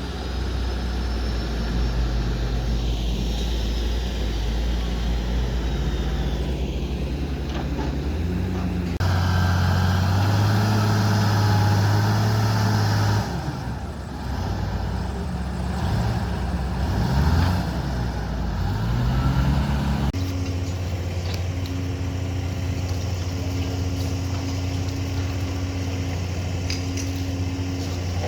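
Excavator's diesel engine running, its note rising and falling between about 14 and 20 seconds as it works. Its pitch and loudness change abruptly twice, at about 9 and 20 seconds.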